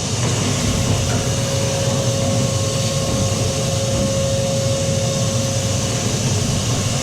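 Vacuum cleaner running steadily, a constant motor whine over the rush of air, sucking built-up lint and dust out of the inside of a tumble dryer.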